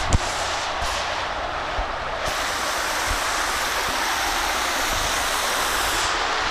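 Shallow water rushing down a stone-paved canal weir close by, a steady rush that grows slightly louder, with a short thump just after the start.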